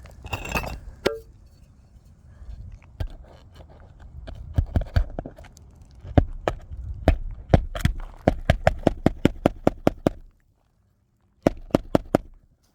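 Hammer driving roofing nails: scattered blows, then a quick even run of about five taps a second, and three more strikes near the end.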